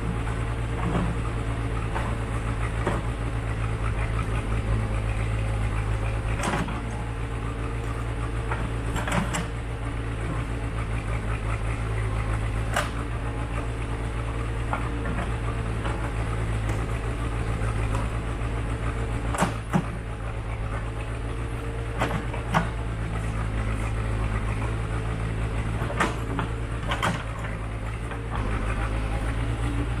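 Case 580C backhoe's engine running steadily as the backhoe digs, with sharp knocks every few seconds from the bucket striking rock and stones.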